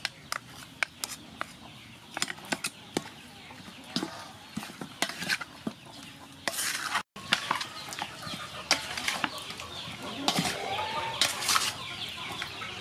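Wooden spoon tapping and scraping against a stainless-steel bowl as raw chicken drumsticks are stirred in their marinade: sharp taps in the first half, denser scraping in the second. Chickens cluck in the background.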